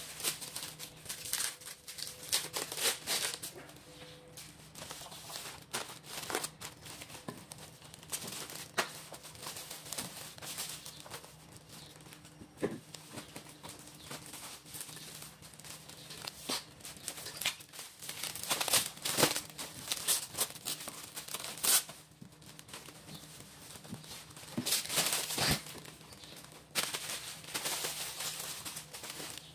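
Plastic cling film and a foil tray crinkling and crackling in irregular bursts as hands stretch the film and press it down around the tray.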